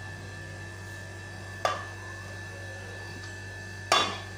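Two short knocks of steel kitchenware being handled, the second louder with a brief ring, over a steady electrical hum.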